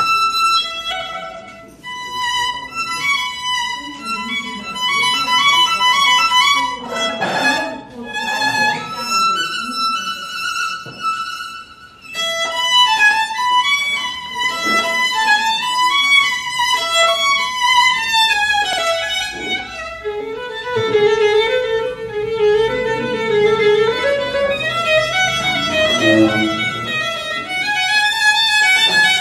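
A violin played live: a quick melody high on the instrument, with a short break about twelve seconds in. From about twenty seconds in it moves down to longer, lower notes.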